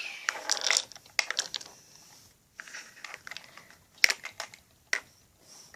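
Plastic packaging being handled and opened, crinkling and rustling, with a few sharp clicks; the loudest click comes about four seconds in.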